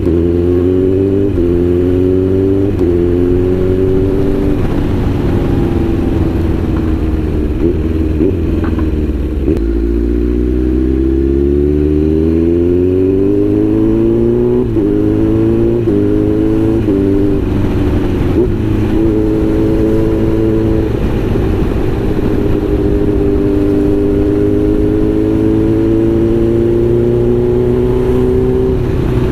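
Kawasaki Z900's inline-four engine heard from the rider's seat, accelerating through the gears. The pitch climbs and drops at each gear change: several quick shifts in the first few seconds, a long climb around the middle, another quick run of shifts a little past the middle, then steadier cruising with the revs slowly rising.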